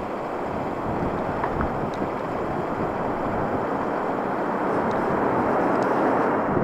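Airbus A300-600ST Beluga's two turbofan jet engines roaring at takeoff thrust as the aircraft climbs out overhead, the roar growing louder as it passes.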